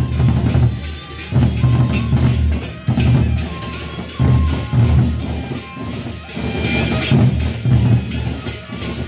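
Gendang beleq, the large Sasak barrel drums of Lombok, beaten with sticks by a marching ensemble in a loud, driving rhythm. Groups of deep strokes repeat about every one and a half seconds.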